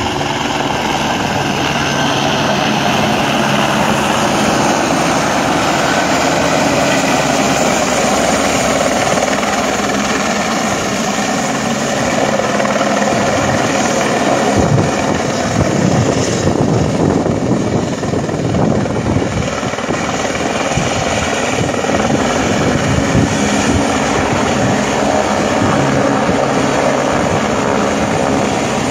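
Military helicopter hovering low over a flooded river, its rotor and engine running loud and steady, with rapid rotor chop throughout.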